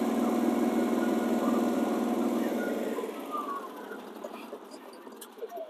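Duromax XP16000iH inverter generator running steadily, then switched off about three seconds in, its engine winding down to a stop.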